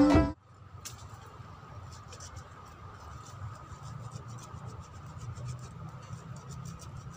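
Background music cuts off about a third of a second in. After it comes faint, irregular scratching and scraping of soil, with light ticks, as the dirt is dug out by hand with a small tool from around a tree's roots.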